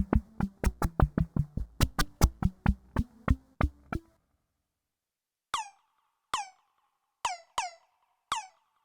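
Fred's Lab Manatee synthesizer playing a preset: a fast run of short, plucky percussive notes for about four seconds. After a brief pause come single notes about once a second, each with a quick falling zap at its start.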